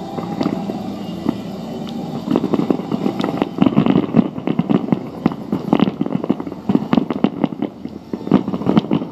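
Fireworks starmine barrage: rapid shell bursts going off one after another, thickening about two seconds in into many sharp bangs a second.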